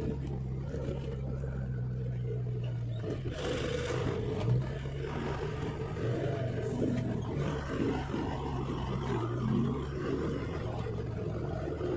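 Heavy truck's diesel engine running steadily under load as the truck crawls along a slippery mountain road, with a short rush of noise about three seconds in.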